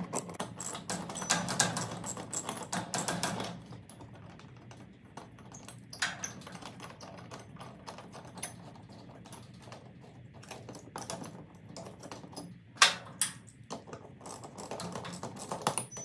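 Socket ratchet clicking rapidly as it unscrews the bolts of a garage door opener rail's wall bracket, for about the first three and a half seconds. After that, a few scattered light clicks and knocks as the metal bracket and rail are handled.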